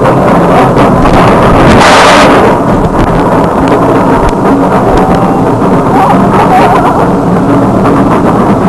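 SheiKra's lift-hill chain hauling a B&M dive coaster train up the incline: a loud steady mechanical rumble with faint clicks. Wind gusts across the microphone about two seconds in.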